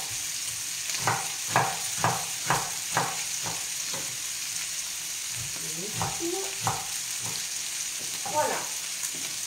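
Kitchen knife chopping radicchio on a wooden cutting board, about two knocks a second for a few seconds and a few more later, over the steady sizzle of speck, onion and radicchio frying in a pan.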